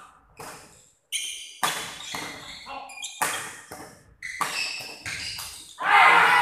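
Badminton doubles rally: rackets strike the shuttlecock several times, with sneakers squeaking on the court floor in between. Near the end comes a loud burst of shouting as the rally closes.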